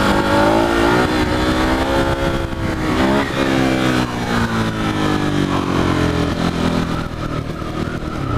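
Yamaha R6 sport bike's inline-four engine pulling away through the gears. Its pitch rises, dips at a shift about three seconds in, climbs again, then eases off toward the end.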